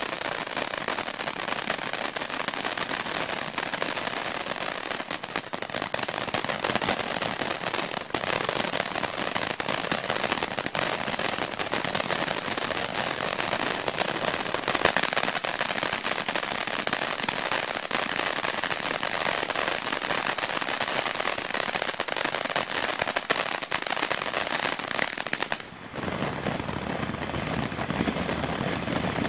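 BA519 Hot Roll Fountain, a ground fountain firework, spraying sparks with a continuous hiss and dense crackling. Near the end the sound briefly drops away, then carries on with more low rumble.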